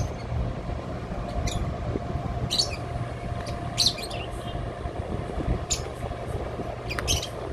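Steady low drone of ship diesel engines as a car carrier is pushed off its berth by a tug, with a faint steady hum over it. Short, high bird chirps come through repeatedly, every second or so.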